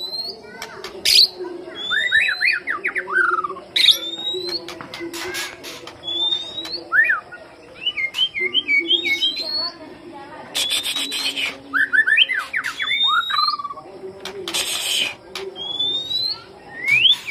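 White-rumped shama singing: sharp rising whistles, each followed by a quick run of tumbling notes, the phrase repeated every few seconds, with a couple of harsh rasping notes in between.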